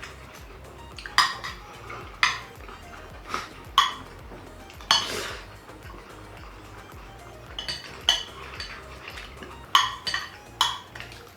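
Cutlery clinking and scraping against dishes or takeaway containers: a dozen or so sharp, irregular clicks, with a longer scrape about five seconds in.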